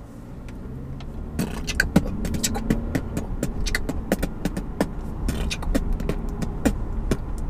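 A man beatboxing inside a car: a quick, irregular string of mouth clicks and pops with short hummed notes, over the car's steady low rumble.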